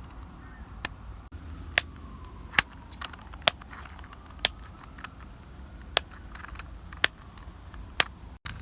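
Plastic fidget toy being handled, giving a string of sharp single clicks about once a second.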